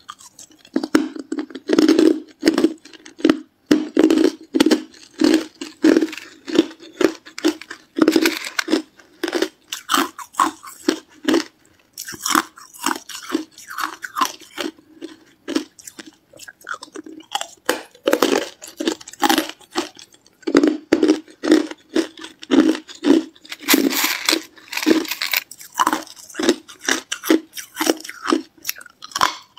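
A person biting into and chewing hard clear ice: a rapid run of sharp crunches and cracks, broken by brief pauses between bites.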